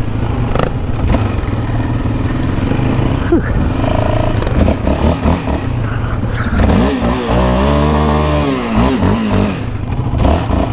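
Yamaha Raptor 700R sport quad's single-cylinder engine running under throttle on a sandy trail, the revs rising and falling. About seven seconds in, the revs climb and then drop back.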